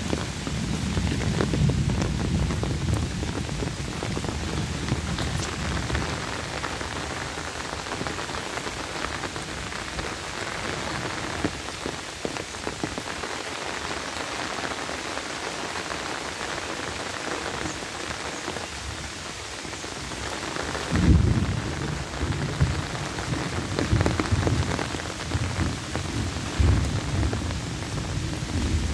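Steady rain falling on foliage and ground, an even hiss. Irregular low rumbling bursts come and go in the first few seconds and again from about two-thirds of the way through, the loudest just after that point.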